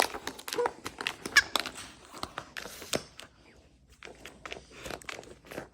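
Wobble Wag dog toy being knocked and rolled about by a husky: a string of irregular knocks, clatters and scuffs, with a short high chirp about a second and a half in.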